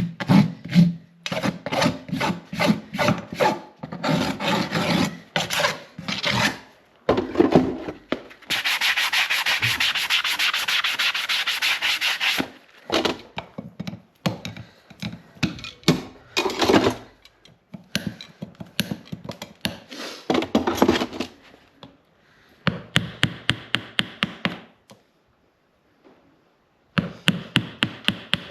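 Farrier's rasp filing a horse's hoof wall in repeated strokes, about two a second, with one unbroken stretch of rasping lasting about four seconds. The strokes stop briefly near the end, then start again.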